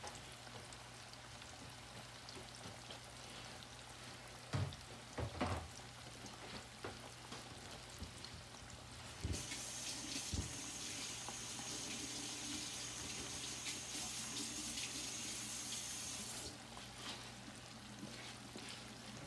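Catfish pieces deep-frying in a cast-iron pot of hot oil: a steady, busy sizzle and bubbling. A few light knocks come around four to five seconds in, and from about nine to sixteen seconds a louder high hiss with a thin steady whine joins, then stops suddenly.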